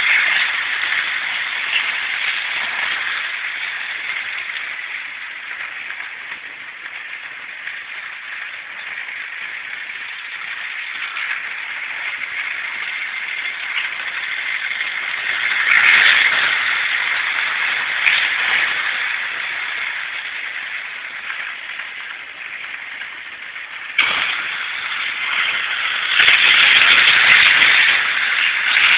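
Hornby model trains running on their track: a steady whirring rattle of small motors and wheels that swells each time a train passes close, loudest near the end.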